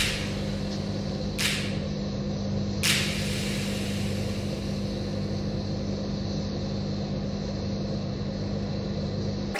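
A steady low hum with an even hiss under it, broken by two short hissing bursts about a second and a half apart.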